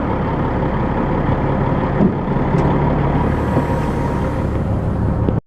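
Heavy log truck's diesel engine running steadily while the truck is worked back to re-latch a detachable lowboy trailer. Near the end the sound cuts off suddenly.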